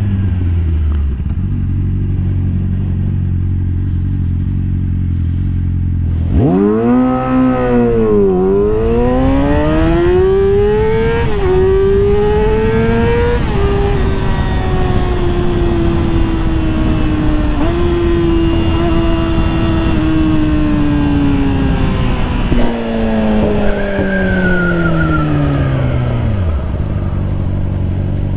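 Sport motorcycle engine running low and steady at first. From about six seconds in it accelerates hard through several gears, the pitch climbing and dropping back at each upshift. The pitch then slowly falls as the bike slows, dropping away to a low note near the end, with wind rushing over the microphone while moving.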